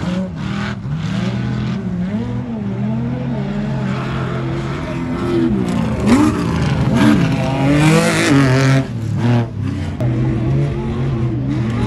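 Off-road race truck engines revving hard, their pitch rising and falling again and again over a steady low drone, with a rush of noise about eight seconds in.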